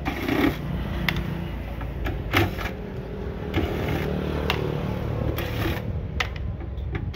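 Electric drill with a screwdriver bit running in spells as it drives the screws out of a welding machine's sheet-metal cover, a steady motor whir broken by sharp metallic clicks about once a second.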